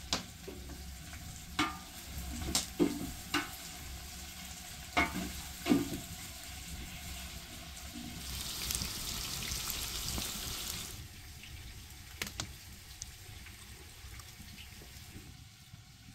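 A metal spoon clinks against a steel bowl several times. Then a steady sizzle from the hot pot on the wood fire runs for about three seconds and stops.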